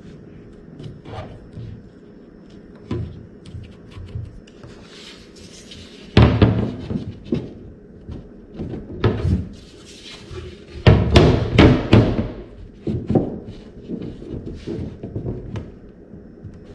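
Irregular knocks, thumps and scraping as pieces are handled and test-fitted against a wooden kayak hull, with the loudest thumps about six seconds in and again around eleven to twelve seconds.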